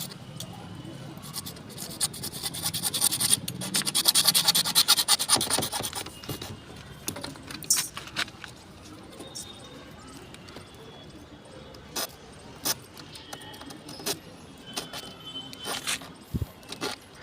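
Plumbing work with hand tools on pipe fittings: a few seconds of rapid scraping about two seconds in, then scattered light clicks and knocks.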